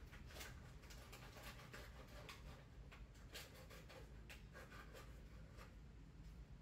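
Near silence: faint, irregular scratchy clicks and rustles over a low steady hum.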